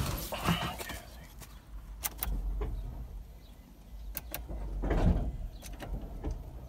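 Someone moving about inside a car's cabin: rustling, several short sharp clicks near the middle, and a low steady rumble underneath.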